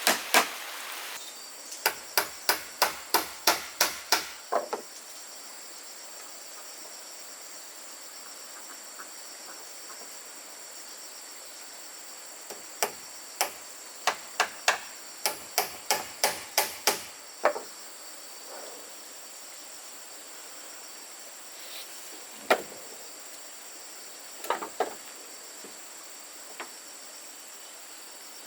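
A hammer striking wood in two quick runs of blows, about two to three a second, then a few single knocks. Behind them is a steady high drone of insects.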